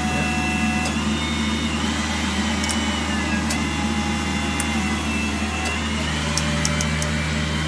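Hydraulic torque wrench undoing a large undercarriage bolt, its pump running with a steady hum and a few sharp clicks from the wrench head.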